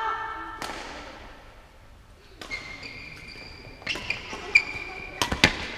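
Badminton rally: several sharp racket strikes on the shuttlecock in the second half, the loudest just after five seconds. Shoes squeak on the sports-hall floor.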